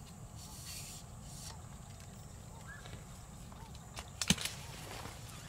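Night-time outdoor ambience by a pond: a steady low rumble with faint small animal calls now and then. About four seconds in comes a quick cluster of sharp clicks, the loudest sound.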